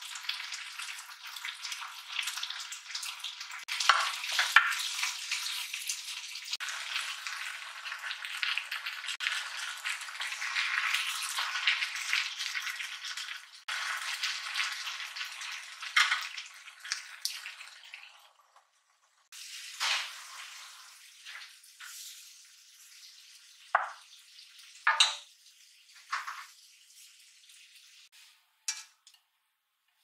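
Potatoes, onion and green peppers sizzling as they fry in a cast iron wok while being stirred with a wooden spatula. The sizzle cuts off after about eighteen seconds, and a few separate clinks and scrapes of utensils on cookware follow.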